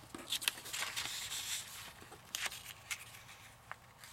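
Loose paper pages rustling and sliding against each other as they are moved about, with a few short light taps and scrapes.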